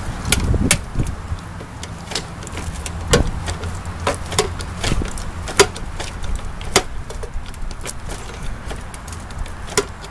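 Long-handled structural rivet gun being squeezed on a 1/4-inch structural rivet: sharp metallic clicks at irregular intervals as the jaws grip the mandrel and let it slip back into the hole, the rivet not yet snapping off. Low wind rumble on the microphone underneath.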